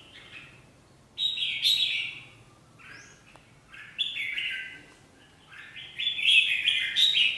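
Red-whiskered bulbuls calling: three bursts of bright chirping calls, about one, four and six seconds in, with a short faint call between them. The calls come from rival birds contesting a female, a caged decoy against a wild pair.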